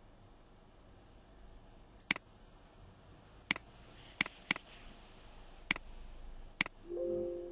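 Computer mouse clicking: about six sharp single clicks at irregular intervals, two of them close together about halfway through.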